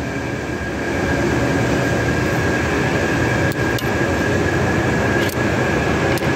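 Steady mechanical noise with a high whine, swelling about a second in, with a few faint clicks.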